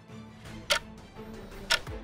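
Quiz countdown timer ticking once a second, two sharp ticks, over soft background music.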